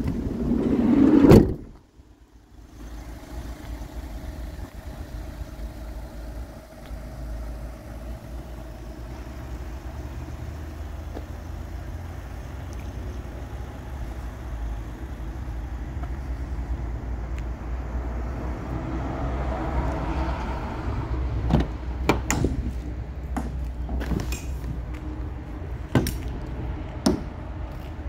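A van door slides and shuts with a bang about a second in. Then a steady low rumble, with a string of sharp clicks and knocks of the door handles and latches near the end.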